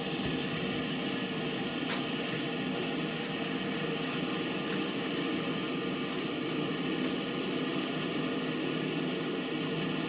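Large combines and tractors with their engines running, a steady drone with a constant low hum.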